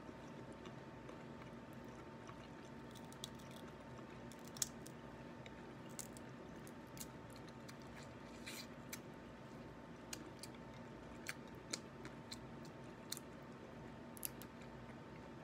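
Faint, scattered clicks and cracks of cooked crab shell being pulled apart by hand, with quiet chewing, over a steady low hum.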